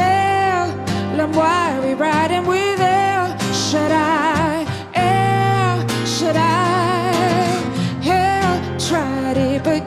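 A woman singing held, wordless notes with a wide vibrato over strummed acoustic guitar chords, in a live gospel-style song.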